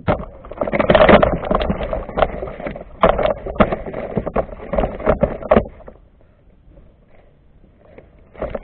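Handling noise on a fishing kayak: a run of irregular knocks, scrapes and rustles for about six seconds, loudest about a second in, then it goes much quieter with a few knocks near the end.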